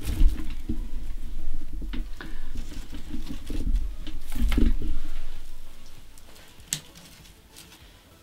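Hands rustling dry grapevine twigs and plant stems while working sprigs of rose hips and ornamental crabapples into a grapevine wreath, with light clicks and dull low knocks. The handling gets much quieter after about five seconds.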